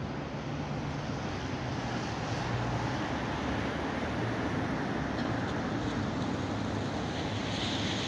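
Steady city background noise: a low hum of distant traffic with a faint rush of wind on the microphone.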